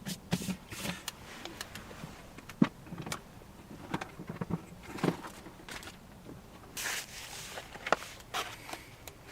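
Irregular clicks, knocks and taps of someone handling things, with a short rustle about seven seconds in.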